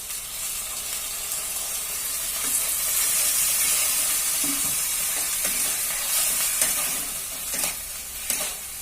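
Diced onion, capsicum and garlic sizzling in hot oil in a pan, the sizzle swelling for a few seconds as soy sauce hits the pan and then easing, while a spatula stirs with a few light knocks near the end.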